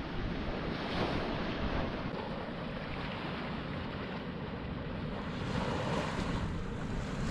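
Small waves washing up on a sandy beach, the surf swelling about a second in and again near the end, with wind rumbling on the microphone.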